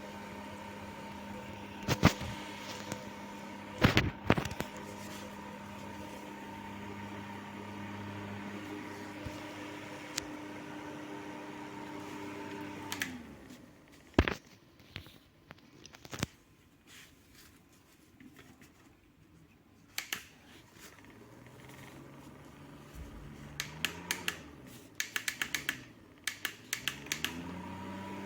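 Electric fan motor running with a steady hum. About halfway through it winds down and stops, with sharp clicks scattered around. Near the end it spins back up to speed, preceded by a quick run of clicks.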